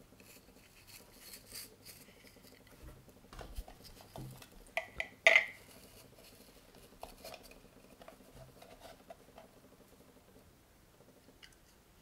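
Hard plastic car-vacuum attachments being handled, with light rattles and clicks. About five seconds in there is a sharp plastic snap, preceded by a smaller click, as the brush head is pushed onto the vacuum's nozzle.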